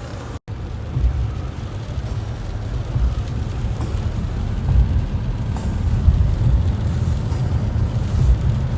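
Car cabin noise while driving: a steady low rumble of engine and tyres on the road, cut off for a moment about half a second in.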